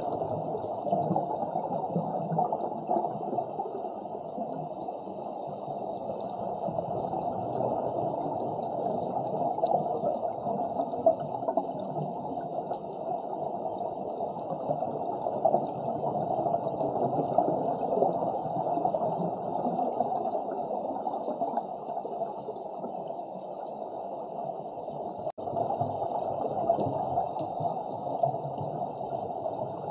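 Muffled underwater sound picked up through a camera housing: a steady rushing, gurgling wash of water with scuba divers' exhaled bubbles. It drops out for an instant once near the end.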